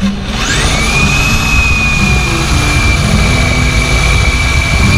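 Cordless drill spinning up quickly to a high whine and then running at steady speed, drilling into the trailer's metal frame.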